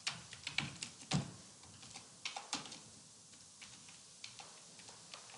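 Computer keyboard typing: irregular key clicks, busiest in the first second or so and again around two and a half seconds in, then sparser toward the end.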